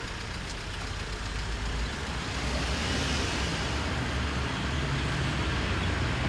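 Old Toyota sedan driving slowly up a street, its engine running with a low rumble and tyre noise, growing a little louder over the first few seconds as it approaches.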